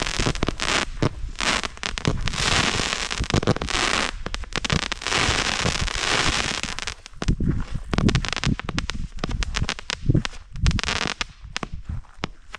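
Small consumer fireworks crackling and popping in rapid, dense bursts with a rushing hiss, thinning out a little in the second half.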